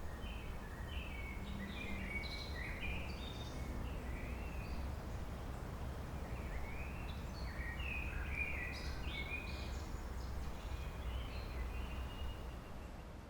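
Birds chirping in many short, quick calls over a steady low rumble of background noise, fading down near the end.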